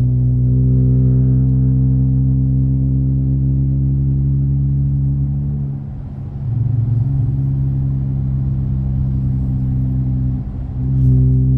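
Car engine and MagnaFlow exhaust droning steadily while cruising, heard from inside the cabin. The drone drops briefly about six seconds in and again near the end, then comes back at the same pitch.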